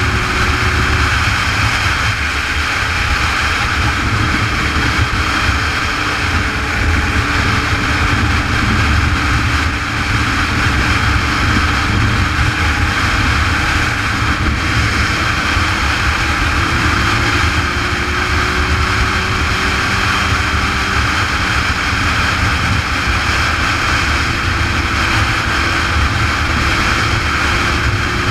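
Steady wind rush and rumble on a motorcycle rider's helmet camera at highway speed, with the bike's engine running underneath as a faint steady hum that shifts slowly in pitch.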